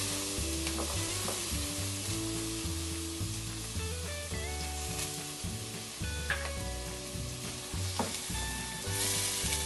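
Chopped onion sizzling as it fries in hot melted pork lard in a pot. A wooden spoon stirs it, knocking against the pot a few times.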